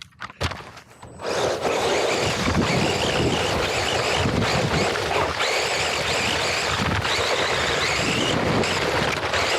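Onboard sound of a racing RC car driving on a dirt track. After a few clicks, a steady rush of wind and dirt noise sets in suddenly about a second in, with a faint wavering high whine running through it.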